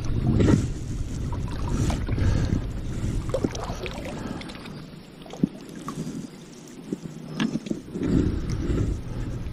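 Kayak paddle strokes swishing and splashing in the water, with wind rumbling on the microphone, louder near the start and again near the end. A few short sharp clicks fall in the quieter middle.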